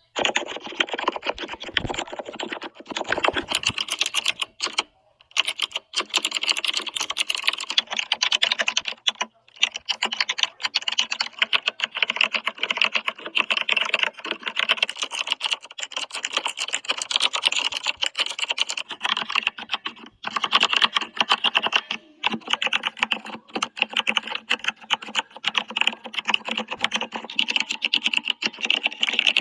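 Fast, continuous typing on a computer keyboard: a dense stream of key clicks with a few brief pauses.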